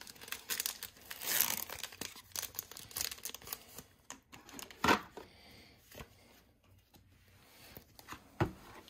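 Foil Pokémon card booster pack being torn open and crinkled, followed by the cards being slid out and handled. A sharp snap about five seconds in and another near the end.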